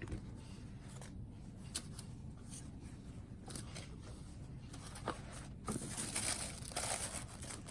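Handling noise from a leather bag strap being fitted to a handbag: scattered light clicks of its metal clasp hardware, with a stretch of rustling and rubbing a little over halfway through.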